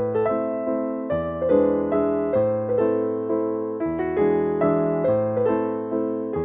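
Background piano music: soft sustained piano chords, with a new bass note and chord about every second and a quarter.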